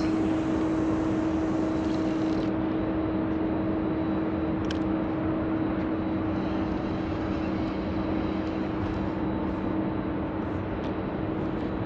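A steady mechanical drone with a constant low hum, unchanging throughout, and a single short click a little before the middle.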